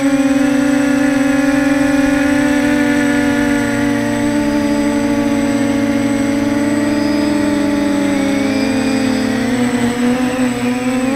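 Quadcopter drone's electric motors and propellers whining steadily, several close pitches drifting apart and back together as the motors change speed.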